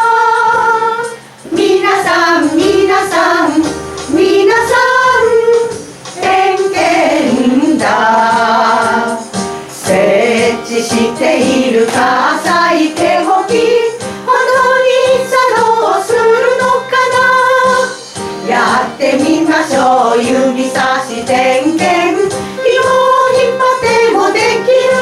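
Music: a song sung by female vocals in melodic phrases with held notes, over instrumental backing.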